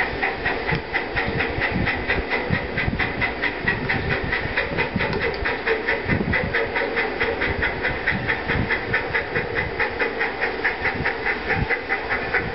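Black River and Western steam locomotive #60 working steadily, its exhaust chuffing in a fast, even rhythm over a steady hiss of steam, with train running noise underneath.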